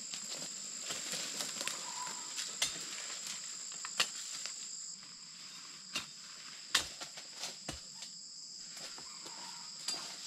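Steady high-pitched insect chorus holding two constant tones, with scattered sharp snaps and crunches in dry leaves and grass.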